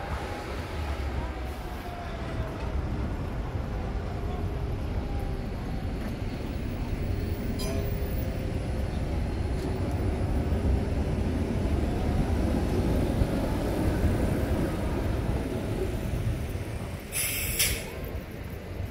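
A tram passing on the street: a low rumble that swells and eases, with faint gliding squeals from the wheels on the rails. A short hiss comes near the end.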